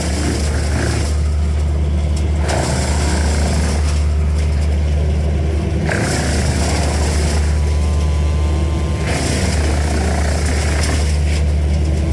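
Engine running steadily at a constant speed, with a rushing noise that swells and fades every few seconds over the hum.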